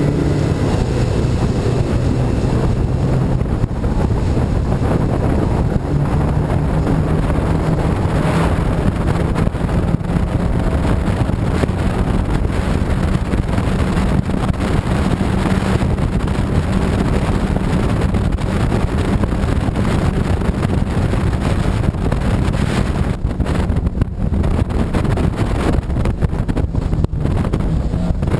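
Racing powerboat under way at speed: its engine running at a steady pitch under heavy wind buffeting on the microphone and the rush of water against the hull.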